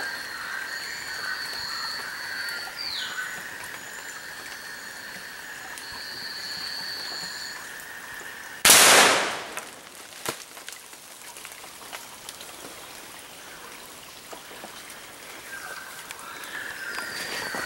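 A single shot from a long-barrelled hunting gun about halfway through: sudden and loud, dying away over about a second. Before it, a steady high buzzing.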